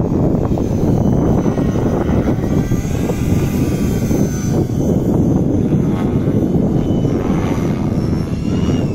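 Electric 500-size RC helicopter flying aerobatics: a steady low rushing from the spinning rotor blades, with a faint high motor whine that glides up and down as the pilot works the throttle and pitch.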